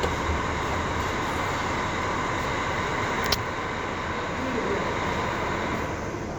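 Steady mechanical rumble and hum, with one sharp click about three seconds in.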